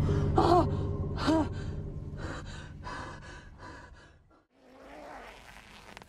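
A woman gasping and letting out two short frightened cries, then panting in quick breaths that fade, over a low held drone. After about four seconds it cuts to a moment of silence, then a faint breath.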